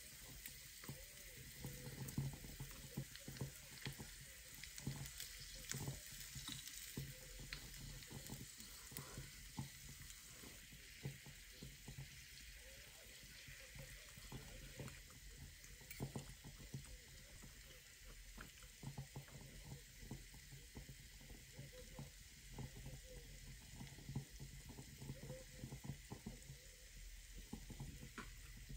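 Meat sizzling steadily on a small tabletop grill, with frequent small clicks and taps of chopsticks and utensils through it.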